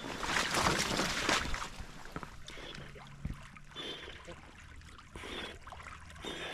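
Water splashing and sloshing as a Labrador retriever comes back through the water on a retrieve, loudest for the first second and a half, then fainter sloshing.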